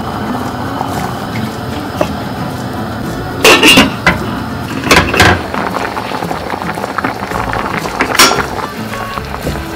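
Stainless-steel pot lid clanking against the rim of a steel pan, in three loud, ringing strikes about three and a half, five and eight seconds in, over steady background music.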